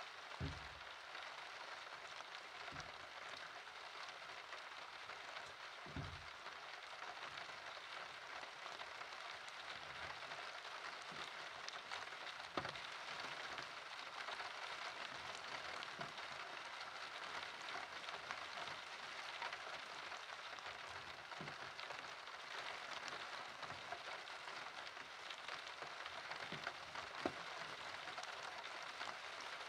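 Steady rain falling, with scattered louder drops or drips landing now and then.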